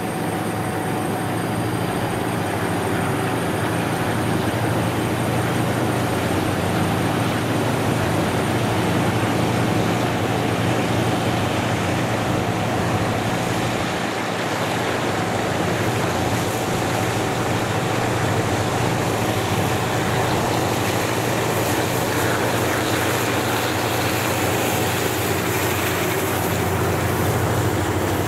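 Diesel locomotive hauling an oil tank freight train as it approaches and passes, its engine giving a steady low hum. Over the last several seconds the clatter and rumble of the tank wagons' wheels on the rails grows as the wagons roll by.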